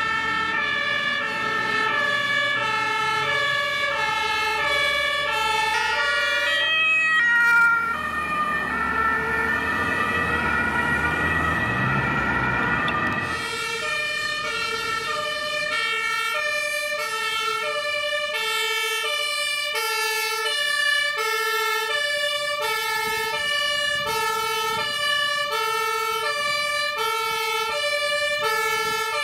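German two-tone emergency-vehicle siren (Martinshorn) of an ambulance, alternating steadily between a high and a low tone. Around seven seconds in the sound changes to a rumbling stretch of engine and traffic noise with the siren weaker, then from about thirteen seconds the two-tone siren is loud and clear, about one high-low cycle a second.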